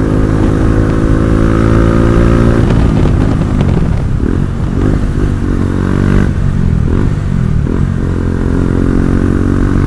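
Motorcycle engine running while it is ridden: a steady engine note for the first couple of seconds, then the pitch rising and falling unevenly as the throttle changes.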